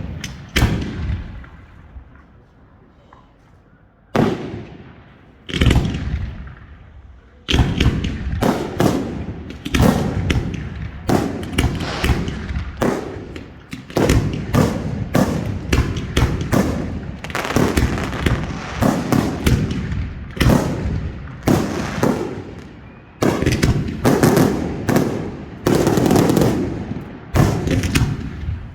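Professional F4 fireworks display heard at close range: a few separate loud bangs, then from about seven seconds in a dense, rapid series of bangs that stops just before the end.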